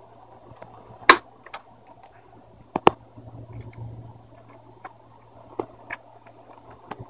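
Plastic screen bezel of a Lenovo G780 laptop being pried off, its retaining clips snapping loose with sharp clicks: a loud one about a second in, a quick pair near three seconds, then lighter ticks. A faint steady low hum underneath.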